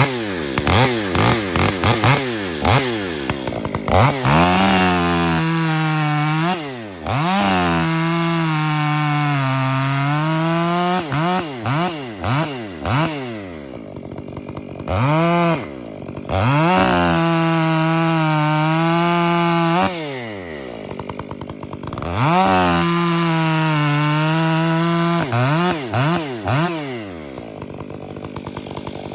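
Large Stihl chainsaw blipping its throttle several times, then held at high revs through three long runs. The pitch sags in the middle of each run, as when the chain is pulling through wood, and the saw drops back to idle between runs.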